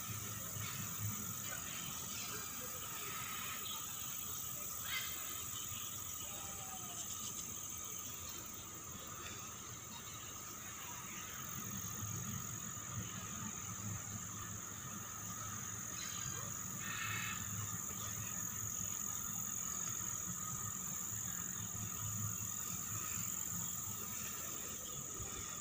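A steady, high-pitched chorus of calling animals, with a fainter low hum beneath and a couple of faint clicks.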